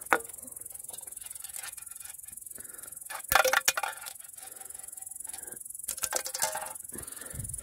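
Empty aluminium drink cans, holed by BBs, handled and knocked over on wooden logs: sudden metallic clinks and rattles with a brief ring, loudest about three and a half seconds in and again about six seconds in.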